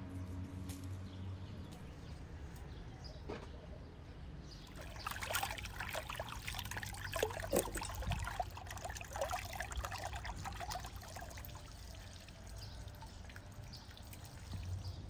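Hands swishing small red berries around in a basin of water, making a busy run of small splashes and drips from about five seconds in until about eleven seconds.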